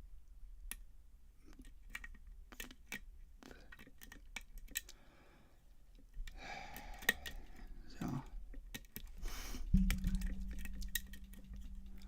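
Scattered small metallic clicks and taps of lock picks and a pin-tumbler lock being worked and handled, with a couple of seconds of rustling midway. Near the end a thump and then a low steady hum come in.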